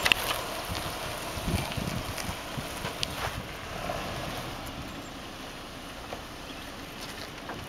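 Hummer H3 crawling slowly over bare rock: engine running at low speed, tyres grinding on stone, and a few sharp knocks and cracks in the first few seconds.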